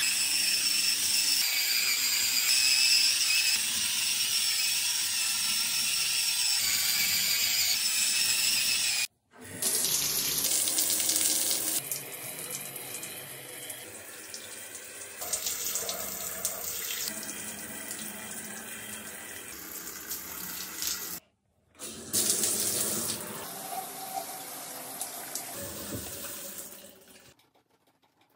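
Water spraying from a handheld shower head onto tile, rinsing the shower. Near the start, an electric spin scrub brush's motor whirs as it scrubs the wet floor tile. The sound breaks off twice and fades out shortly before the end.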